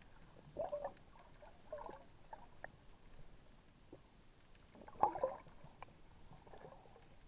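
Muffled underwater bubbling and gurgling with scattered clicks, picked up by a submerged action camera; a louder burst of bubbling about five seconds in.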